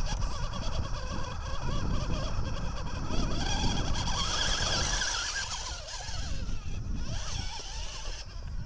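Electric motor and gear drivetrain of a radio-controlled rock crawler whining as it climbs over rocks, the whine strongest about three to five seconds in, over a steady low rumble.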